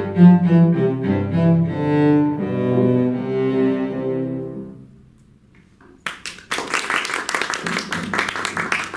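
Cello with piano accompaniment playing the closing phrase of a piece, ending on a held note that dies away about five seconds in. After a short pause, audience applause starts about six seconds in and carries on.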